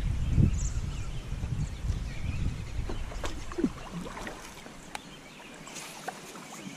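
Kayak on the move down a river, with low water rush and wind buffeting the microphone that die away after about four seconds, then a few sharp knocks.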